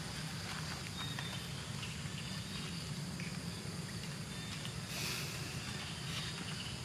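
Steady outdoor forest background noise with a faint constant high hum and scattered short, faint chirps and clicks.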